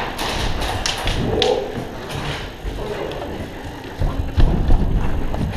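Scattered sharp clicks and knocks, several close together in the first two seconds, then a cluster of heavier low thumps about four seconds in.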